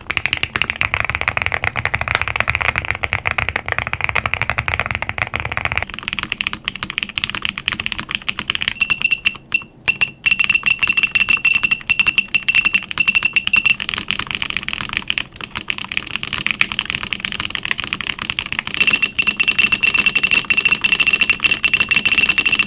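Fast continuous typing on a QK65 mechanical keyboard fitted with Gazzew Boba U4T tactile switches. About six seconds in, it switches to a custom mechanical keyboard with a higher, brighter clack. A thin steady high tone sounds in the background for a few seconds at a time in the second part.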